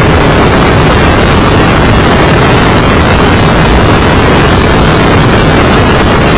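Open-wheel race car running at speed, heard from a camera mounted on the car: engine and wind buffeting on the microphone blend into one loud, even noise with no clear engine note, loud enough to overload the recording.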